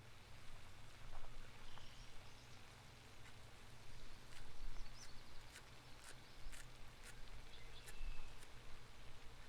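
Outdoor ambience: a low rumble, a few faint bird chirps, and a scatter of sharp clicks from about four to seven and a half seconds in.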